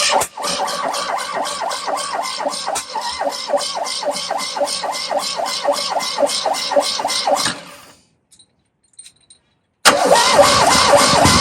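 Fiat 126's air-cooled two-cylinder engine being cranked by the starter motor with a steady rhythmic churn and not catching. The cranking stops, and after a pause of about two seconds a second attempt starts near the end.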